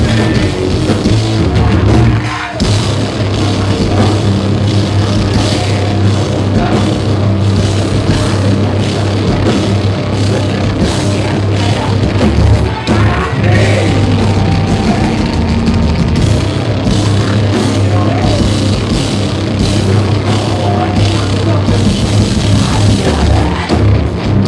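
A live heavy metal band playing loud, with bass, guitars and drums, in a poor-quality audience recording.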